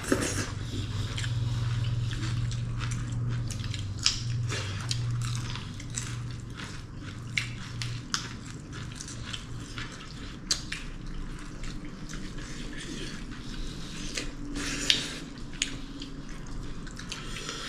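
People eating: scattered wet mouth clicks, chewing and small snaps of food and dishes at irregular moments, over a low steady hum that fades about eight seconds in.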